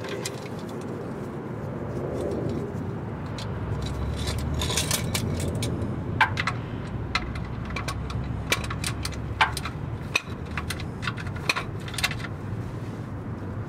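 Ratchet wrench tightening an oil drain plug back into the oil pan, giving sharp metallic clicks at irregular intervals from about four seconds in, over a low steady rumble.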